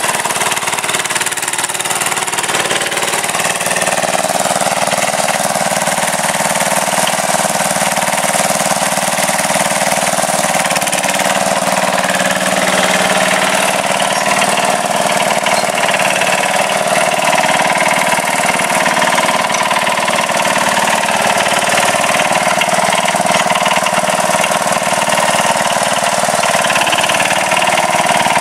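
Sears Suburban garden tractor engines running steadily while the tractors push dirt with their front blades.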